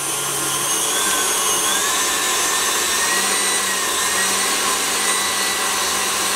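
KitchenAid Classic stand mixer running at speed, its wire whip beating thick buttercream in the steel bowl. The motor's whine climbs in pitch between about one and two seconds in as the speed is turned up, then holds steady.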